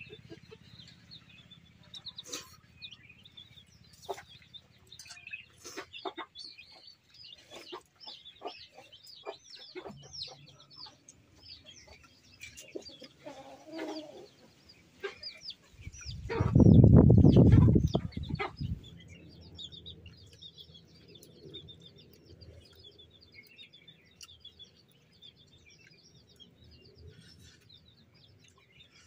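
Chickens clucking, with small birds chirping. About sixteen seconds in, a loud low rushing noise lasts about two seconds and is the loudest sound.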